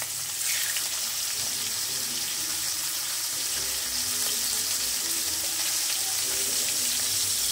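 Raw pork steaks sizzling in hot oil in a frying pan, a steady hiss that gets louder about half a second in as a second steak is laid in the pan.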